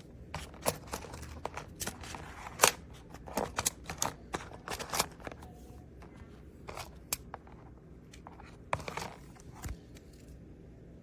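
TOSY small magnetic cubes clicking and snapping together as they are handled, in an irregular run of sharp clicks that thins out after about five seconds.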